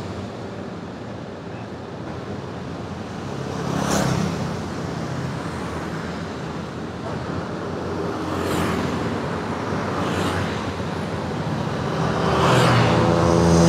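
Road traffic passing close by: motorbikes and cars going past one after another over a steady traffic hum. There is a louder pass about four seconds in, and near the end a louder engine hum builds as another vehicle approaches.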